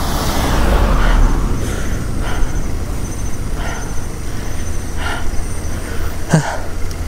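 A car passing close by in the opposite direction, its road noise swelling and peaking about a second in. Steady low wind rumble on the camera of a moving bicycle runs underneath.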